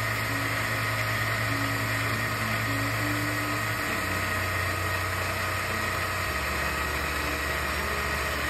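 Countertop blender with a glass jar running at a steady speed, blending a thick green smoothie: a steady motor hum with a high tone over the churning of the contents.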